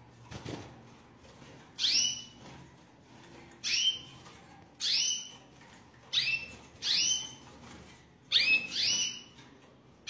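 Caged canaries calling: about eight short high chirps, each sweeping down in pitch, coming at irregular gaps and bunching up near the end.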